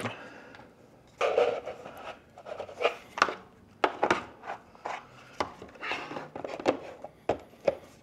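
Hard plastic battery spacers knocking and clacking as they are picked up, stacked and set down on a cutting mat, with a scraping rub just over a second in and about eight sharp knocks after.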